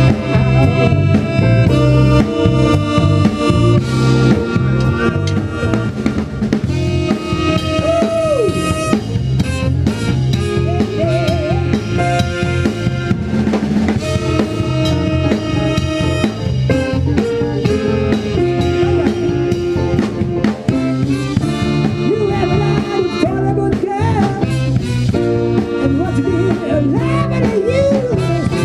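Band playing an instrumental passage of a song: a drum kit with snare and bass drum keeps a steady beat under sustained pitched instruments, with some sliding notes in the middle range.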